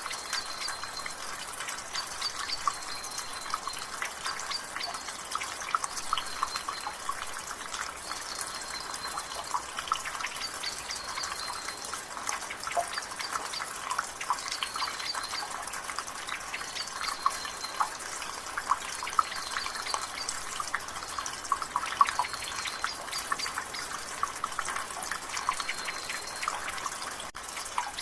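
Rainwater dripping and trickling from a gutter, a steady patter of drops over a drizzle hiss. A bird gives a short, high call over it about every second and a half.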